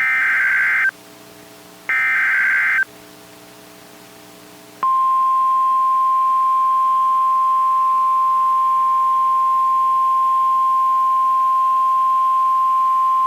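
Emergency Alert System SAME header data bursts, two harsh digital screeches about a second long and a second apart. About five seconds in, the steady 1050 Hz NOAA Weather Radio warning alarm tone starts and holds. Together they mark the start of a new warning broadcast, here a flash flood warning.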